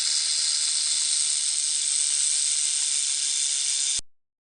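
Snake hissing: one long, even hiss that stops abruptly about four seconds in.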